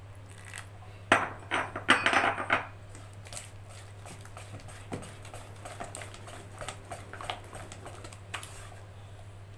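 A utensil clattering and knocking against a bowl as thick zalabia batter is mixed and beaten: a burst of loud knocks about a second in, then lighter, scattered taps.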